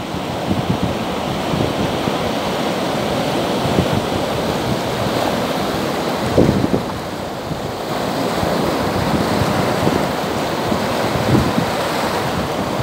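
Small surf breaking and washing up the sand and around a rock at the water's edge, a continuous wash of foam with a stronger surge about six and a half seconds in. Wind buffets the microphone underneath.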